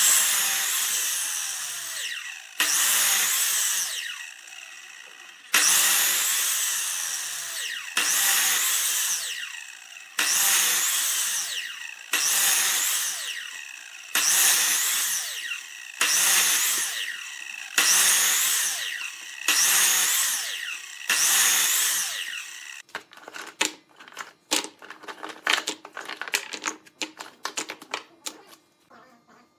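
Sliding miter saw cross-cutting a small log into thin rounds: about ten cuts roughly two seconds apart, each starting abruptly and fading in a falling whine as the blade spins down. From about 23 seconds in, a rapid clatter of small wooden knocks as the cut wooden discs are handled and set down on a table.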